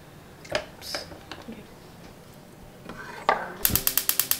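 Stainless steel saucepan of eggs handled on a gas stove: a few light clinks, then a knock about three seconds in. Near the end comes a rapid run of sharp clicks, about ten a second for about a second, like a gas stove's spark igniter.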